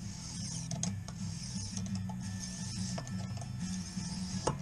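Lansky guided knife sharpener in use: the oiled hone stone on its guide rod scraped in repeated strokes along the edge of a clamped knife, a rasping hiss that comes and goes with each stroke, with a few light clicks.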